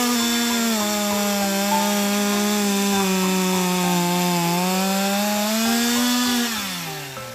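Two-stroke chainsaw at full throttle, its pitch sagging slightly while it cuts through wood and then rising again as the load comes off. Near the end the throttle is released and the engine winds down.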